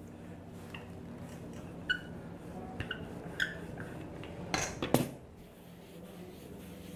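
Wooden rolling pin working dough on a metal worktop: a few light knocks against the metal with a short ring, then a louder knock about five seconds in as the pin is set down on the table.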